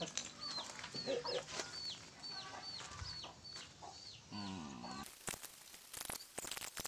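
Chickens in the background: short, high peeps that fall in pitch, repeating about two to three times a second, with a lower cluck now and then. About five seconds in the peeping gives way to a hiss and a few scratchy sounds.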